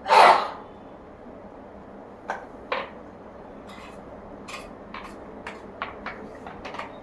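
A short loud cough at the start, then a scattered string of light clicks and clinks, coming more often toward the end: parts of a washing machine stand being handled.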